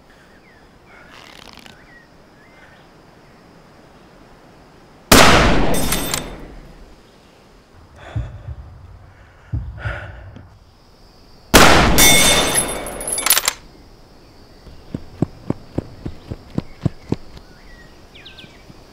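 Two shots from a .308 Winchester Tikka T3x Lite Compact bolt-action rifle, about six seconds apart, each ringing out and dying away over a second or two, with a couple of quieter sharp knocks between them. Near the end, a run of light footsteps on the ground.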